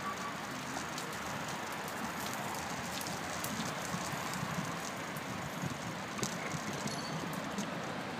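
Riding a bicycle over a path and brick paving: a steady rushing noise from the rolling tyres, with many small irregular clicks and rattles.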